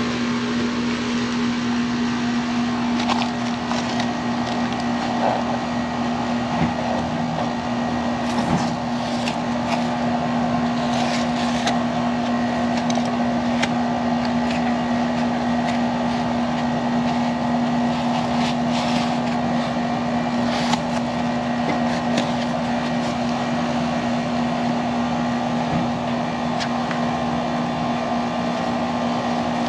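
Outdoor air-conditioner condenser running: a steady, loud hum with constant fan air noise. Scattered short rustles and taps from foam pipe insulation being handled and fitted around the refrigerant line.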